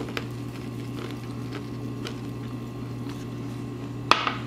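A steady low hum, with a few faint soft ticks from a seasoning shaker being shaken over a bowl, and a brief vocal sound about four seconds in.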